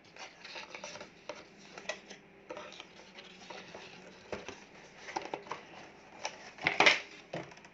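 Cardboard rubbing and scraping as an inner box is slid out of its cardboard sleeve, with scattered light taps and a louder scrape near the end.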